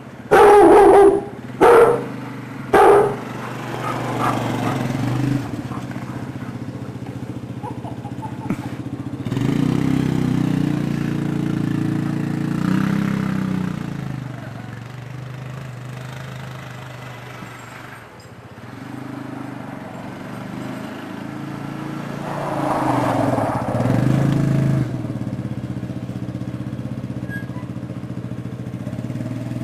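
A fox terrier barks three times at the start, then an engine runs steadily, speeding up twice and easing back.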